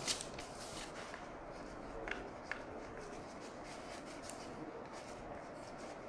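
A plastic glue bottle set down on the table with a sharp knock, then a thin wooden stick scraping and lightly tapping in a clear plastic tray as two-part epoxy is stirred. The sound is faint, with a couple of clicks about two seconds in.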